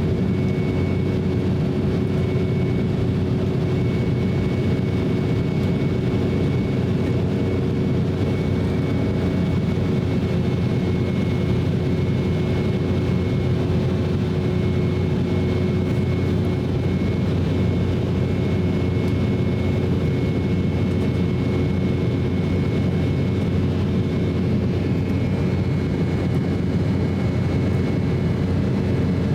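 Cabin noise inside an Embraer E190 airliner: a steady drone of its GE CF34 turbofan engines and airflow, with a constant hum and a faint high whine that stay unchanged.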